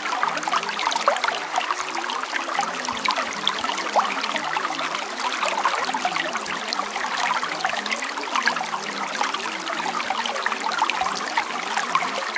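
Running water trickling and splashing steadily, like a small stream, as a continuous bed of sound.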